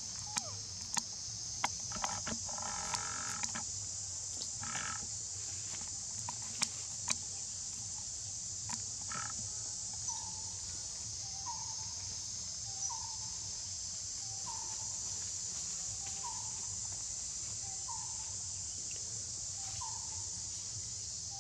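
Forest insects keep up a steady high drone. Sharp clicks and cracks come through the first seven seconds, and from about halfway a short animal call repeats about every second and a half.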